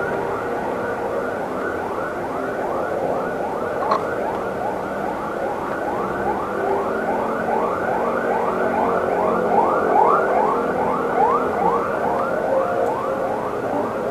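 Electronic siren in a fast yelp, its pitch sweeping upward over and over at about three rises a second.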